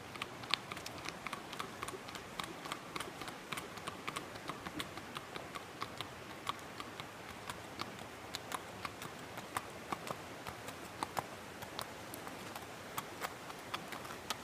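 A horse walking on a paved road, its hooves clip-clopping on the asphalt in an uneven run of sharp clicks, several a second.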